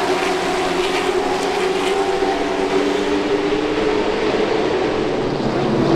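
Race car engines running at speed on a short track: a steady, loud drone whose pitch slides slowly lower.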